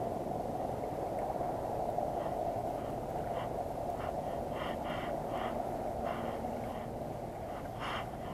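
Steady wind rush and water noise on an open-water camera microphone, with faint irregular ticks and small splashes now and then.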